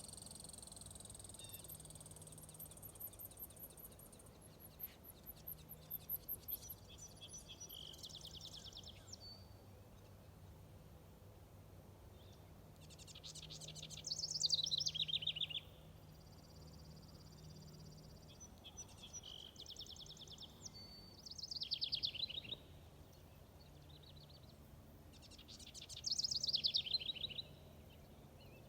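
A warbler singing, a fast buzzy run of notes that drops in pitch and lasts about two seconds. The song comes three times, six to seven seconds apart, with thinner high notes and buzzes between the songs.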